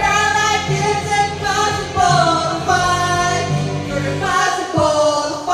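Women singing karaoke through microphones over a music backing track.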